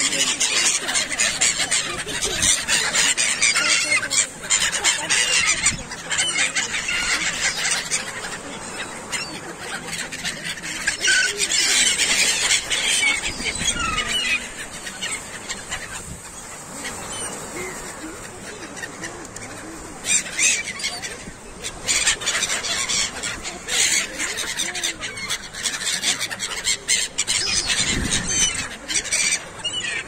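A flock of gulls, mostly black-headed gulls, calling loudly and in many short overlapping cries close by, with wings flapping right beside the microphone. The calling is densest in the first half and thins out after about 14 seconds.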